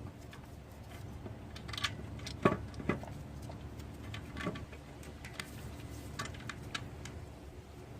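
Scattered light metallic clicks and taps of bolts and the new alternator being handled and started into its mounts by hand, the sharpest knock about two and a half seconds in.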